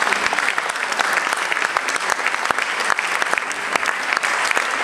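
An audience applauding steadily: a dense patter of many hands clapping.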